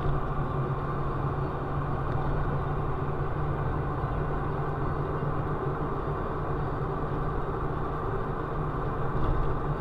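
Steady engine and road noise heard from inside a moving car's cabin, with a constant low hum.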